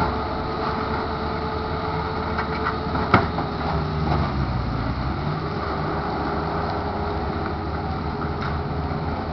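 Diesel engines of a tracked excavator and a skid-steer loader running steadily at demolition work. The engine pitch sags for about a second, four to five seconds in, then picks back up. A single sharp clank comes about three seconds in.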